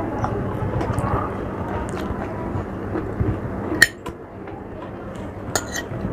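Cutlery clinking against a plate while eating, with a sharp clink about four seconds in and another near the end.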